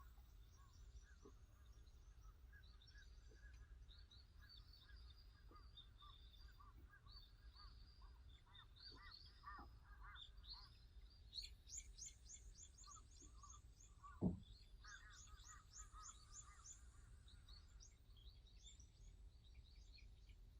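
Faint wild birdsong: several birds giving short chirps and rapid trills of quickly repeated notes, over a low steady outdoor rumble. A single sharp knock about two-thirds of the way through is the loudest sound.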